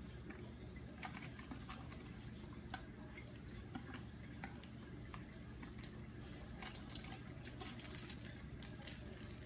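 Faint, scattered drips and small splashes of water as bagged fish are put into an aquarium to acclimate, over a steady low hum.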